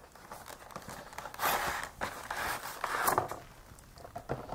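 Cardboard box and plastic packaging rustling and scraping in a few bursts as a model locomotive is slid out of its box, loudest from about one and a half to three seconds in.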